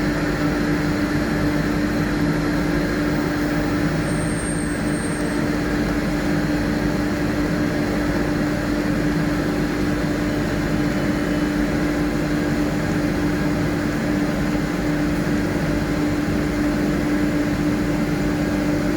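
Kaeser ASK 32 rotary screw air compressor running steadily under load, with a constant low hum over an even mechanical noise, as it builds pressure in a 1000-litre air receiver.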